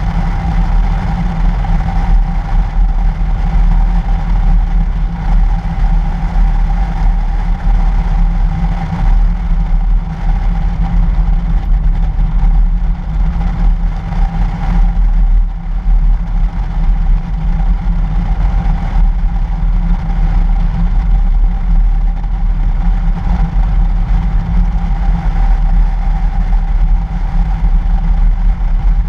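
2013 Toyota FJ Cruiser driving on a snow-covered road: a steady, loud rumble of engine, tyres and passing air, picked up by a camera mounted on the outside of the body.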